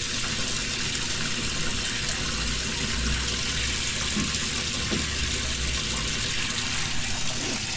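Water pouring steadily from a hose bib into a tank of water, a continuous splashing stream filling the flood-and-drain tank, with a low rumble underneath for a few seconds in the middle.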